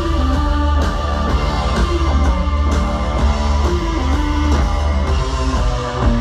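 Rock band playing live: a repeating guitar and bass riff over a drum kit, with heavy bass throughout.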